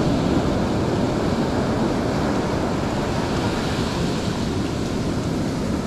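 Ocean surf washing steadily on a beach, with wind on the microphone.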